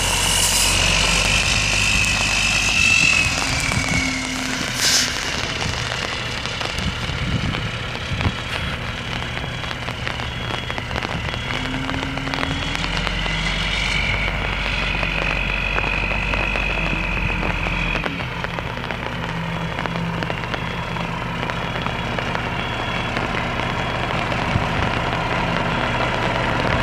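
Mack 12.0-litre inline-six diesel in a 1995 Mack CH613 semi truck idling steadily, with a thin high whine that comes and goes.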